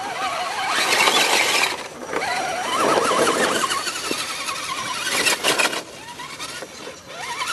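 Electric motors and geared drivetrains of RC scale crawler trucks whining, the pitch rising and falling as the throttle is worked over rock, with stretches of rougher scraping noise mixed in.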